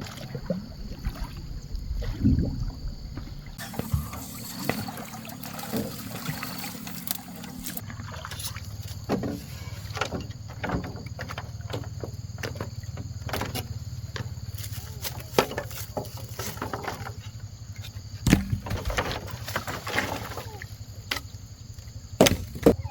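Paddling on water: splashing and dripping, with scattered sharp knocks, against a steady low hum.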